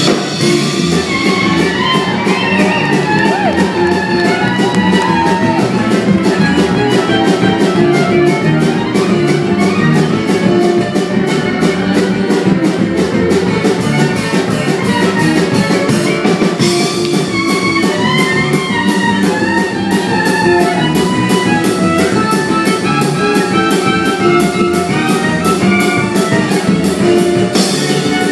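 A band playing an instrumental stretch of a song: drums keep a fast, even beat while a lead instrument plays quick bending melodic runs over the guitar and bass.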